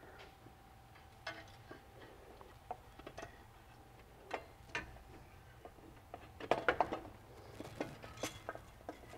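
Scattered light metallic clinks and knocks as a new exhaust manifold and catalytic converter assembly is lowered into the engine bay and worked over the cylinder-head studs. A quick run of louder clatter comes about two-thirds of the way through.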